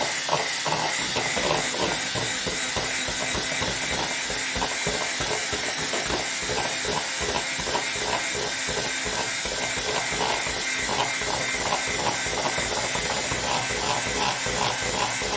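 Electric stick blender with a twin-wire whisk attachment running steadily in a ceramic bowl, whipping a cake batter of eggs and sugar.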